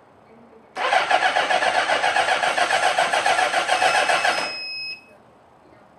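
1977 Honda CB750's inline-four engine turned over on its electric starter for about four seconds with a fast, even pulsing, just after an oil and filter change. This cranking builds oil pressure until the oil pressure light goes out. It drops to a brief quieter whir and then stops suddenly.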